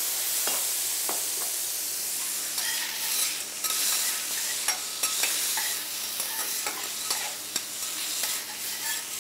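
Chicken thighs sizzling on a hot steel teppanyaki griddle as splashed rice wine steams off. Metal spatulas click and scrape on the griddle, more often from about two and a half seconds in.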